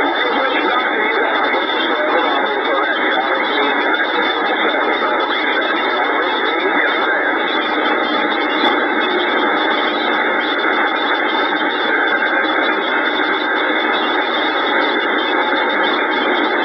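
CB radio receiver putting out a steady rush of band static between transmissions, with a few faint steady whistling tones in it. The sound is cut off sharply at the low and high ends, as it is through a radio's narrow audio.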